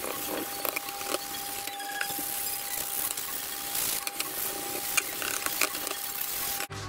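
Carbon fibre part being hand-sanded with P240 abrasive: a continuous scratchy rasp with small scuffs and clicks as the pad moves over the resin surface. A faint steady tone runs underneath.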